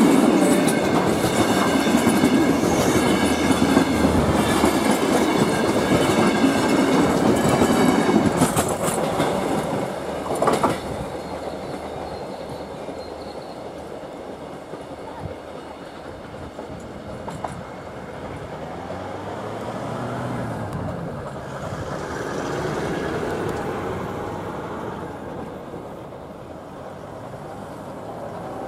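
Passenger carriages of a steam-hauled heritage train rolling past close by on narrow-gauge track, wheels clicking over the rail joints. About ten seconds in the sound drops away to a fainter, steady rumble of the train moving off into the distance.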